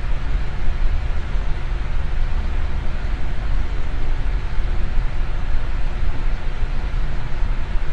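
Electric fan running steadily: a constant whooshing rush of air, deep and even, with a faint steady hum.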